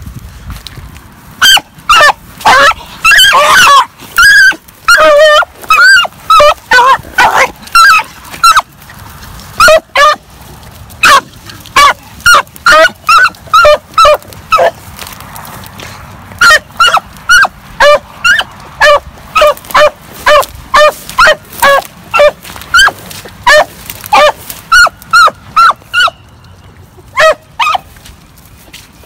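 A rabbit-hunting dog barking over and over while trailing a rabbit, about two barks a second in the later part, with a short break around the middle.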